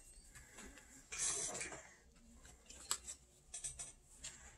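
Quiet handling of smartphone packaging: a brief rustle and scrape about a second in, then a few light clicks and taps as pieces are set down on a hard desktop.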